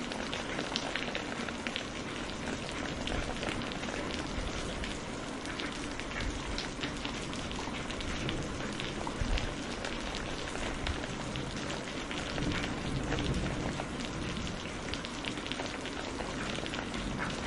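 Heavy rain falling steadily, with a dense pattering of drops. There is a brief low rumble about nine seconds in.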